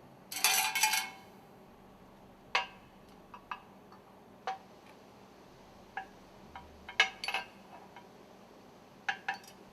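Metal stuffing-box ring segments being handled on a work table: a quick cluster of metallic clinks about half a second in, then scattered single clinks and taps.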